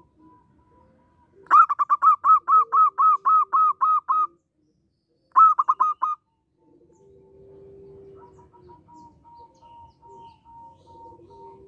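Zebra dove singing: a fast, even run of about a dozen staccato coos, then a short run of four more after a brief pause. Fainter, longer cooing notes sound before and after.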